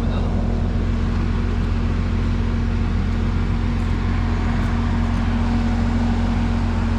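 Diesel engine of a concrete boom pump truck running steadily, a constant low drone with a steady hum.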